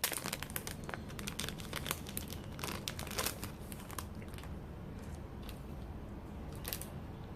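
A sticker pack's packaging crinkling and crackling as it is handled and opened by hand. The crinkling is dense for the first few seconds, then thins to a few scattered rustles.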